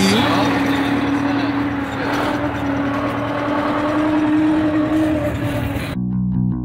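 Zetor 7745 tractor's four-cylinder diesel engine running steadily under way, heard from inside the cab, with a steady droning tone. About six seconds in it cuts off abruptly and music with a bass guitar begins.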